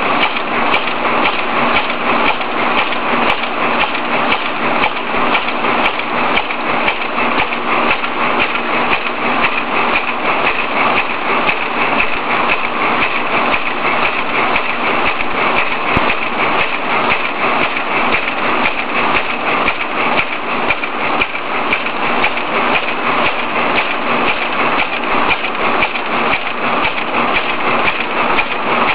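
Plastic bag-making machine with a flat stacker running at production speed for lettuce bags: a loud, steady mechanical clatter and hiss with a fast, even rhythm of strokes.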